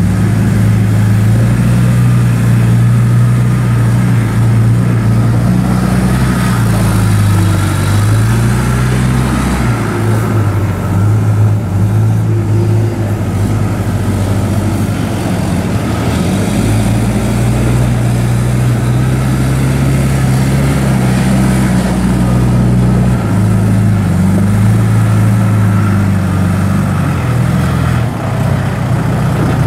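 Diesel engine of a John Deere 310J backhoe loader running, its speed going up and down several times over the stretch.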